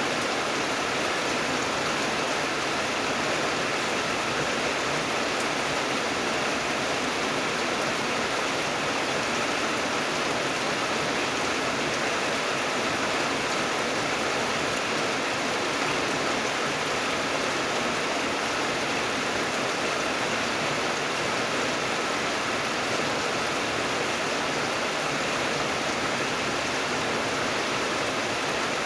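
Steady rain, an even hiss with no single drops or breaks standing out.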